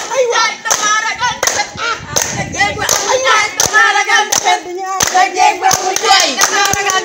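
A small group clapping their hands in rhythm, about two claps a second, while singing a call-and-response chant together.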